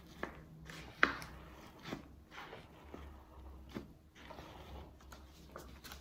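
Faint handling noises: scattered light clicks and rustles, roughly one every half second to second, as a plastic acetate strip is worked over the cream on a cake.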